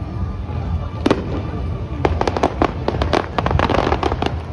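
Fireworks going off: a loud single bang about a second in, then a rapid crackle of many sharp reports from about two seconds on, over a steady low rumble.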